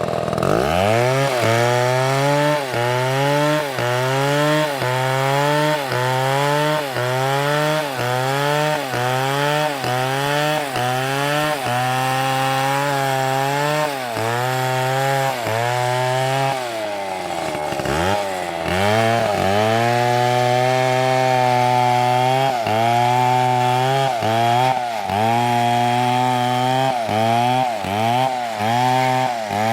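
Two-stroke chainsaw cutting into a dead palm trunk at full throttle. The engine pitch dips and recovers in a steady rhythm, a bit more than once a second, as the chain bites under load. About 17 seconds in it drops almost to idle and then revs back up.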